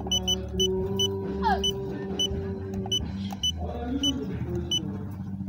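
A series of short, high electronic beeps at uneven intervals, about a dozen in all, over a steady low rumble; a held tone sounds through the first half.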